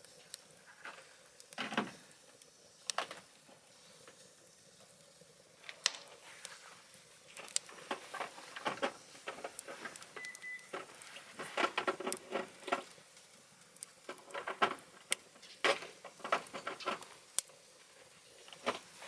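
Wood fire burning in a wood stove, crackling with irregular sharp pops and clicks over a low hiss, with a brief high whistle about ten seconds in.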